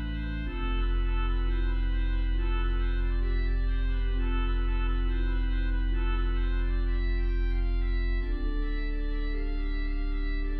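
Organ playing sustained chords over a deep pedal bass. A louder, low pedal note enters about half a second in, and the bass moves to another note about eight seconds in.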